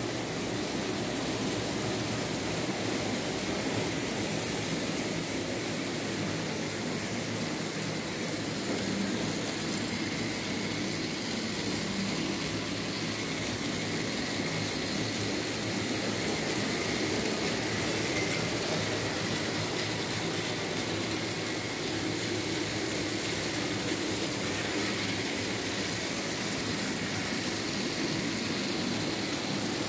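Märklin H0 model BR 74 steam locomotive running along the track with its freight wagons: a steady whir of the small electric motor with wheels rattling on the rails.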